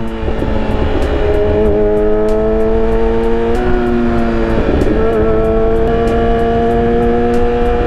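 Motorcycle engine running steadily at highway cruising speed, its note stepping up slightly about three and a half seconds in, with wind rumbling on the microphone.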